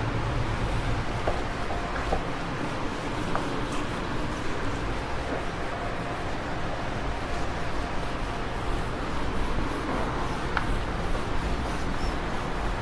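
Whiteboard being wiped clean with a duster: a soft, steady rubbing over a low steady hum.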